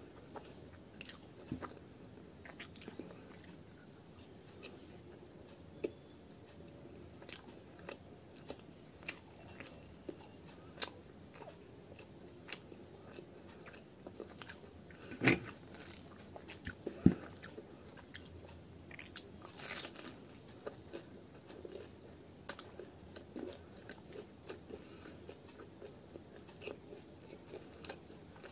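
Close-up mouth sounds of a person biting and chewing fried murauri (radish-stuffed kachori) dipped in chutney. Many short sharp bites and chews, the two loudest a couple of seconds apart about halfway through.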